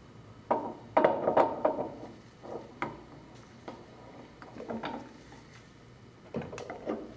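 Irregular metal clinks and knocks as a stuffing box and trim assembly is set back into a high-pressure control valve body and a wrench is fitted on it and turned to tighten it. The clatter is busiest about a second in and again near the end.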